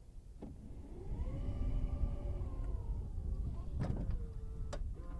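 BMW 4 Series Gran Coupe's powered tailgate closing on the key fob's command: a click, then the tailgate motor whining for about three seconds, rising and then falling in pitch, and a sharp click as the tailgate shuts and another about a second later as it latches.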